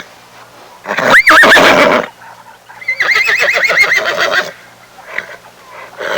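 An animal calling twice: first a sharp rising call that quavers back down, then a longer call with a rapid quaver.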